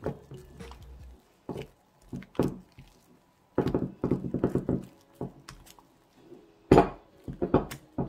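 Silicone spatula stirring and folding thick whipped cream in a glass bowl: irregular wet scrapes and squelches, with a quick run of strokes about halfway through and the loudest one near the end.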